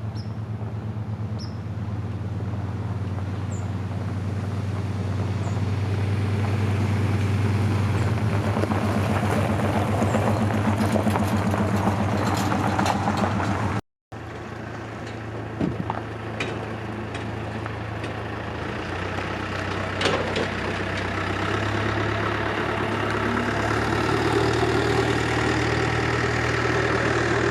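A vehicle driving along the road: a steady low engine drone with road noise. It drops out for a moment about halfway through, then the same driving noise carries on.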